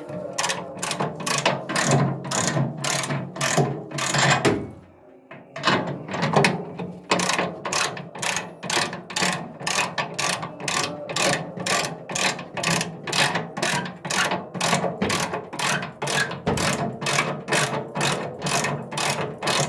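Ratchet wrench clicking steadily, about three clicks a second, as it turns screws out of a washing machine's casing, with a short pause about five seconds in.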